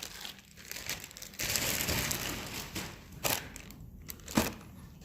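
Packaging waste being crumpled and crushed by hand, with two sharp knocks near the end.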